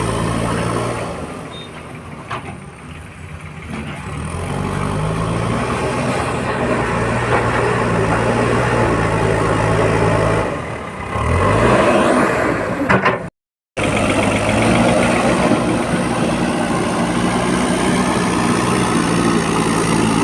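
JCB 4DX backhoe loader's diesel engine running under working load, easing off for a few seconds and then revving up again about eleven seconds in. The sound breaks off for half a second just after that, and the engine then runs on steadily.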